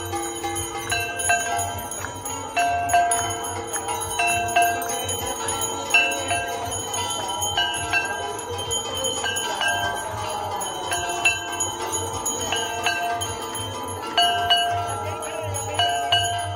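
Temple bells rung in a steady rhythm for a Hindu aarti, with ringing strikes repeating every second or so over devotional music.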